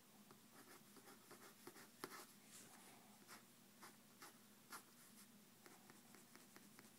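Faint scratching of a drawing tool on paper: many quick, short sketching strokes, with a sharper tick as the point lands about two seconds in and again near five seconds.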